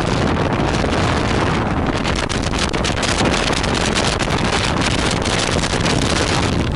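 Wind buffeting the microphone on a rigid inflatable boat running at speed, mixed with the steady rush of its Evinrude 130 outboard motor and the churning wake, with rapid crackles through the middle.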